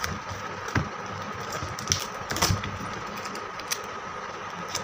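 Scattered light clicks and taps of hands handling sellotape and a craft-paper model, with a few sharper knocks. The loudest come about two and a half seconds in.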